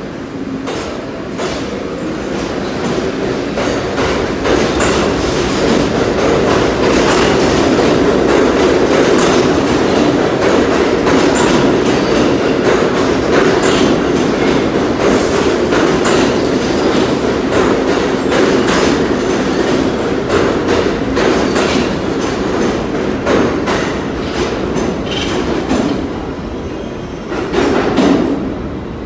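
Bombardier R62A subway train running past the platform and out of the station: a steady rumble with a rapid clickety-clack of wheels over rail joints. It builds over the first few seconds and eases off as the last cars go by, with a short louder burst near the end.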